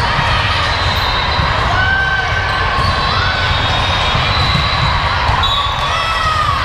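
Sneakers squeaking on a gym court floor, several short squeals, over the steady hum of spectators in a large echoing hall.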